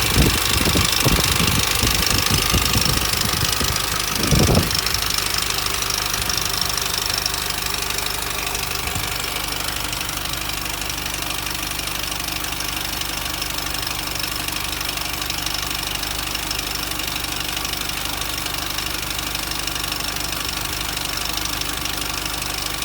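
Mini Cooper S R53's supercharged 1.6-litre four-cylinder running steadily with an established timing-chain rattle, which the owner is pretty sure means the chain has already jumped, with the front guide possibly broken. A few low thumps come in the first five seconds, the loudest about four and a half seconds in.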